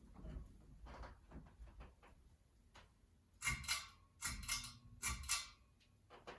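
Ceiling-fan pull-chain speed switch pulled three times, each pull a short burst of sharp clicks and chain rattle, stepping the fan to medium speed. Faint light ticks come before the pulls.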